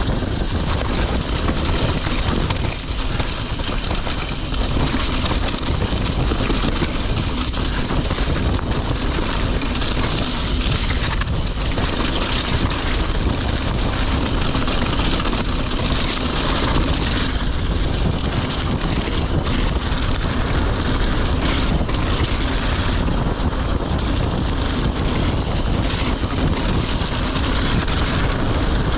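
Mountain bike rolling downhill over a wet, muddy and stony dirt track: steady tyre noise, with scattered knocks and rattles from the bike over bumps and stones, under steady wind noise buffeting the microphone.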